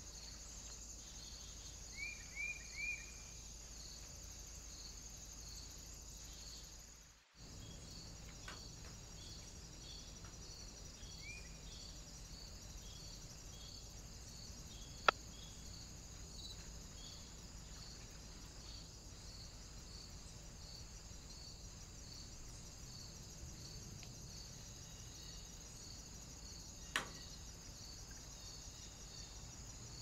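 Faint, steady high insect trilling, like crickets, with a regular pulsing chirp over it. A few short, falling bird chirps come about two seconds in and once more later, the sound cuts out briefly, and there are two sharp clicks.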